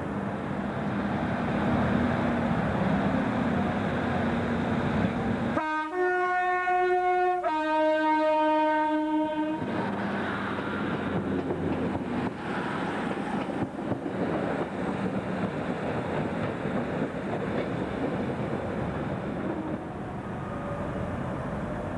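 Train running through a station, then a two-tone horn about five seconds in: a higher note for nearly two seconds, then a lower note for about two seconds. After the horn, the rumble of the moving train continues.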